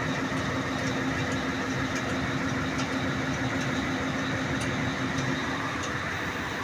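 Mercedes-Benz Actros 2040 truck's diesel engine idling steadily, with a few faint metallic clicks.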